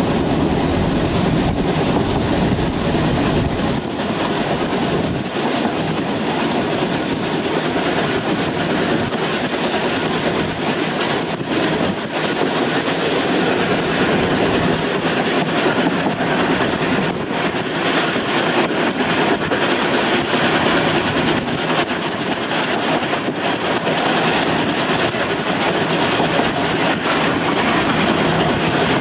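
Narrow-gauge train on the Isle of Man Steam Railway running along the line: a steady rumble with wheels clicking over the rail joints.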